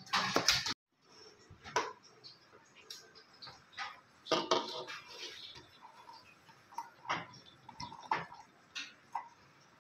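A louder sound cuts off abruptly within the first second. After it come irregular clinks and knocks of kitchen utensils and dishes being handled, with a denser cluster about four and a half seconds in.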